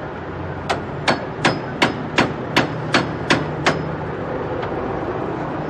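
Hammer driving a chisel into a door to force it open: nine sharp blows in quick, even succession, about three a second, that stop a little past halfway through.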